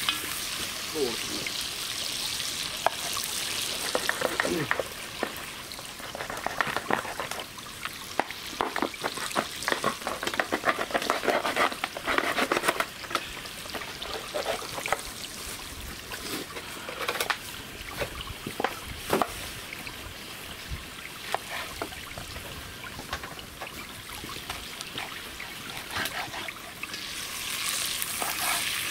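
Food frying and sizzling in a black pot over a campfire, a steady hiss with many small crackles that come thickest in the middle.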